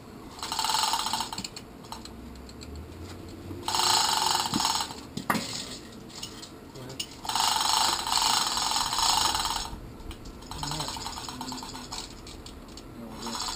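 Hand socket ratchet clicking in four bursts of one to two and a half seconds each, working bolts on a marine engine hanging from a shop engine hoist, with a single sharp metal clank about five seconds in.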